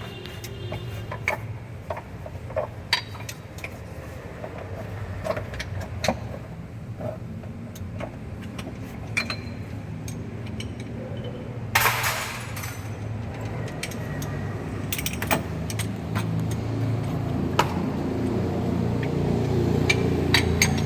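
Metal tools clinking and knocking during repair work on a truck, over a steady low hum that grows louder toward the end. A short burst of hissing noise comes about twelve seconds in.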